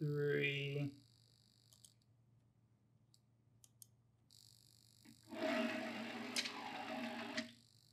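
A dynamics cart rolling along a metal track for about two seconds, with a sharp click at the midpoint as it strikes the spring bumper on a force sensor and rebounds. Near the start there is a short buzz rising in pitch, and between the two there are a few faint ticks.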